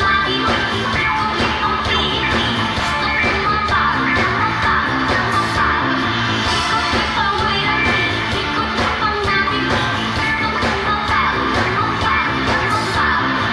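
A live band playing loud pop-rock with guitar, keyboards and drums, and a female vocalist singing over it.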